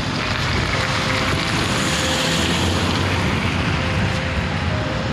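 Steady city traffic noise from cars and buses driving past on a wide road, with wind rushing on the microphone.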